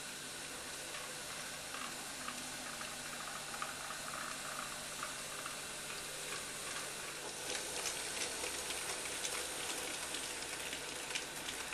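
N gauge model trains running on the layout: a faint steady hiss with light, scattered clicking of the small wheels on the track, the clicks coming more often in the second half.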